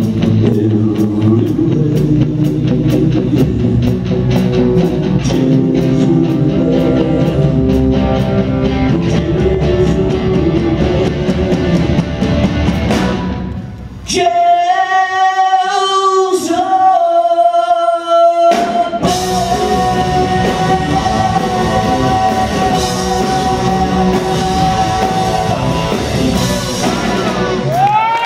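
Live rock band with a male lead singer: about halfway through, the band drops out and the singer holds a long note alone, then the band crashes back in under a long held note for the song's final ending.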